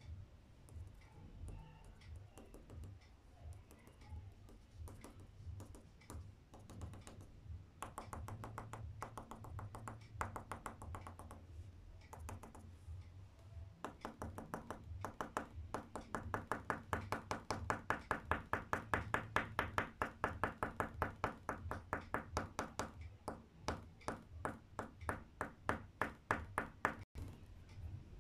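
Colored pencil tip tapping rapidly on paper while dabbing in small star marks: quick taps of about five a second, growing louder past the middle.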